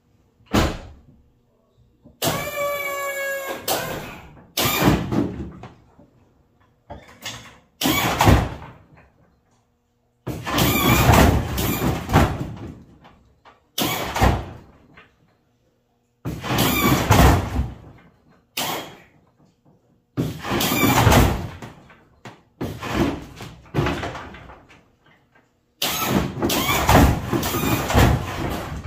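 Lowrider hydraulic suspension on a 1991 Chevy S10 being switched up and down: the pump motors whir and the dump valves release in about a dozen short bursts of one to three seconds, one of them with a clear whine. The front end is being raised and dropped to test newly fitted hopping coils.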